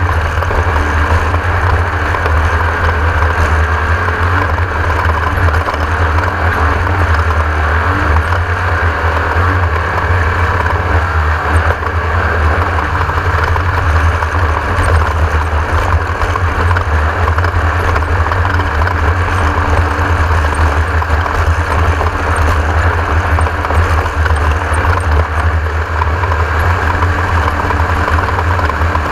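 Class 1600 off-road race car's air-cooled Volkswagen 1600 cc engine running steadily, with a strong low rumble under constant mechanical noise.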